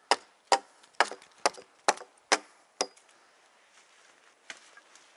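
Axe chopping a wooden pole: seven sharp blows about two a second, stopping about three seconds in.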